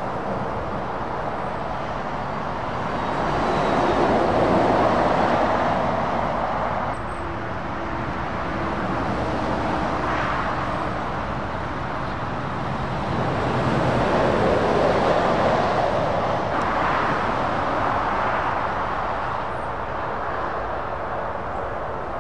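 Heavy lorries, among them Scania tractor units, driving past with diesel engine and tyre noise over steady road traffic. The sound swells twice as the nearest trucks go by, about four and fifteen seconds in.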